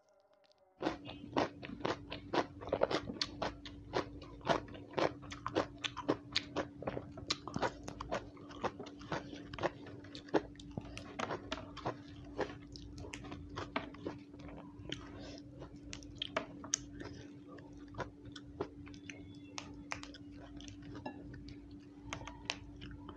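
Crisp crunching and chewing of raw yardlong beans (asparagus beans), several bites a second, starting suddenly about a second in and growing softer and sparser toward the end. A steady low hum runs underneath.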